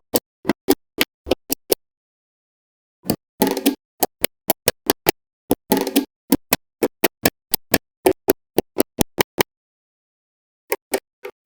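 Small magnetic balls snapping onto one another with sharp clicks, about three or four a second, in runs broken by pauses, with two short clattering bursts as several balls hit at once.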